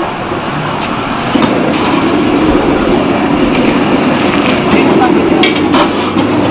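Busy restaurant kitchen noise: a steady rumbling roar that grows louder about a second and a half in, with a few sharp clinks and some faint chatter.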